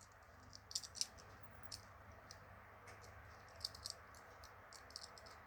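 Faint, scattered small metal clicks of a Victorinox Handyman Swiss Army knife being handled as its pliers are opened out.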